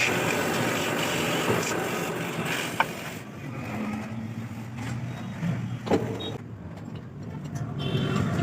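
Steady mechanical din, like a vehicle or workshop machine running, that drops to a quieter low hum about three seconds in, with a sharp metallic knock near three seconds and another near six.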